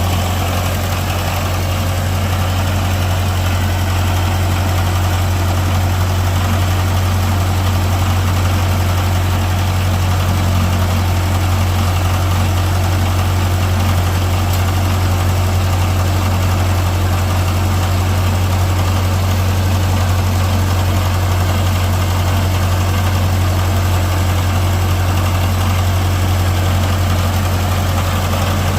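Old Ferguson tractor engine idling steadily, a constant low running note.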